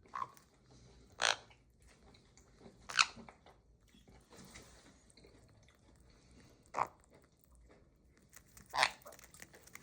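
A conure biting and crunching a piece of food in its beak: five short, sharp crunches spread unevenly across a few seconds, with quiet between them.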